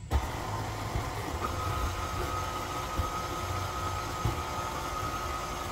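KitchenAid Artisan tilt-head stand mixer switched on, its motor running steadily as the flat beater works through ground beef and eggs in the steel bowl. A steady whine sets in about a second and a half in, over uneven low thumps from the beater churning the meat.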